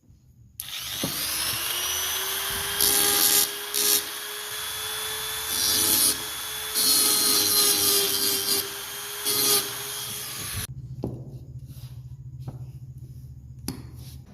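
A small electric power tool spins up, runs steadily and stops abruptly about ten seconds in. Five louder grinding bursts come on top of it as the tool bites into the work.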